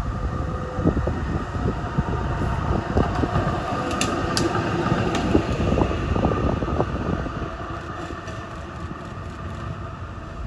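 Melbourne A-class tram running past on its rails and pulling away, with a steady hum, two sharp clicks about four seconds in, and the sound fading over the last few seconds. Wind rumbles on the microphone throughout.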